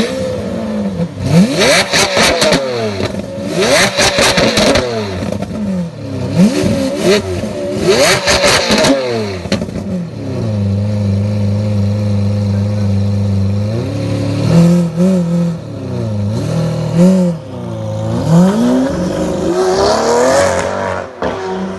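Lamborghini Aventador V12 engine being revved again and again, its pitch sweeping up and falling back, with crackles through the first several seconds. It settles to a steady idle for a few seconds past the middle, then is blipped a few more times.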